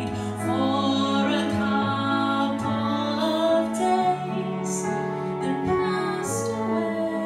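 Live slow ballad: a woman singing sustained notes over keyboard chords.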